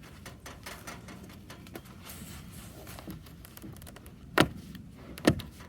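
Faint rustling and small ticks of the cloth, foam and plastic beading of a cut-open window valance being handled and pulled apart by hand, with two sharp clicks about four and five seconds in.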